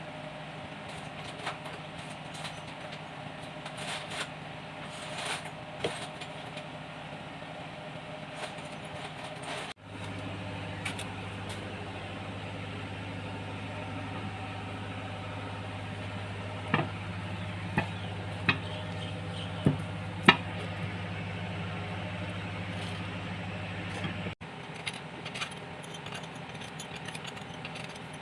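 A steady low mechanical hum with sharp metallic clicks and knocks, the sound of metal parts and tools being handled on an engine; the hum changes abruptly twice.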